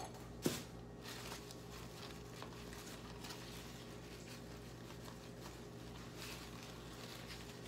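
Faint rustling of large fig leaves being folded by hand into a parcel on a metal sheet pan, with a single knock about half a second in, over a low steady hum.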